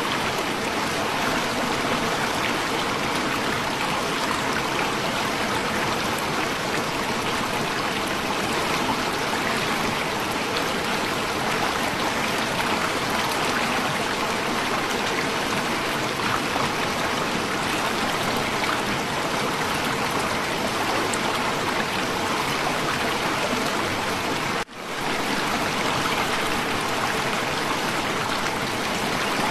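Steady rush of water tumbling over the rocks of the Shoilo Propat waterfall, briefly cut off for a moment about 25 seconds in.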